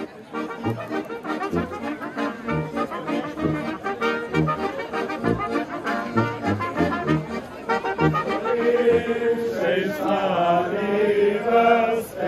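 Village brass band of clarinets, brass and tuba playing a dance tune with a regular oom-pah bass. About eight and a half seconds in, many voices join in singing along over the band.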